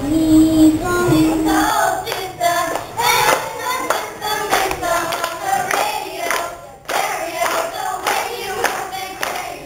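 Girls singing into stage microphones, with hands clapping a steady beat along, about two claps a second. A long held note ends just under two seconds in.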